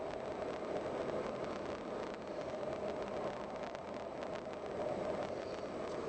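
Car driving slowly on a paved road: a steady rumble of road and tyre noise, with a faint steady high-pitched tone above it.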